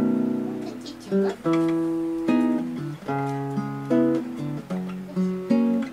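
Background music on guitar: a run of plucked notes and chords, each ringing and fading before the next.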